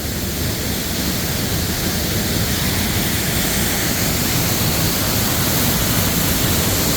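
Loud, steady rush of a waterfall, growing slightly louder over the few seconds.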